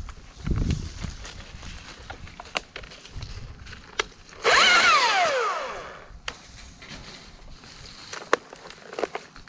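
A chainsaw blipped once, its engine note falling steadily as it slows back down over about a second and a half. Scattered light clicks and knocks come before and after it.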